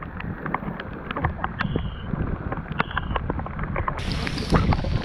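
Heavy rain hissing on open water and on a small boat, with many scattered sharp ticks of drops hitting close to the microphone over a low rumble. About four seconds in the rain hiss turns brighter.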